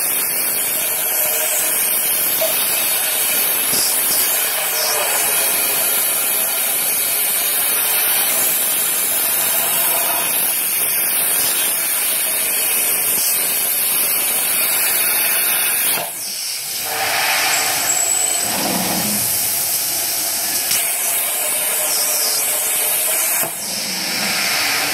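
CNC plasma torch cutting a rectangular steel tube: a loud, steady hiss from the arc and its gas jet. The hiss stops about two-thirds of the way through, leaving a fainter, thinner hiss.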